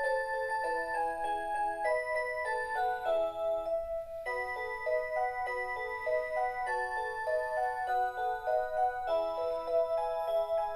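Rhythm Aria Cantabile melody alarm clock playing a Christmas tune, an electronic melody in several voices over a steady running accompaniment of short notes.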